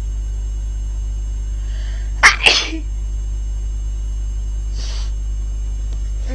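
A person's sneeze, brought on by allergies: a short breath in, then a sharp, loud sneeze in two quick bursts about two seconds in. A faint breath sound follows about five seconds in.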